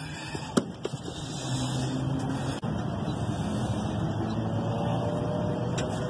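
A couple of light clicks, then a steady mechanical hum with a low drone that starts about a second in and keeps going.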